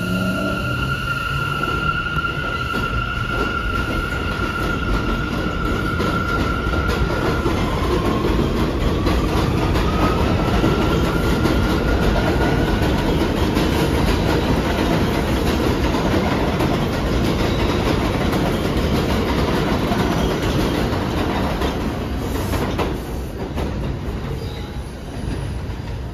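New York City Subway A train running past on elevated tracks, with a steady rumble and wheel clatter. A high steady squeal comes over the first several seconds, then a whine rises in pitch as the train runs on. The noise drops away near the end.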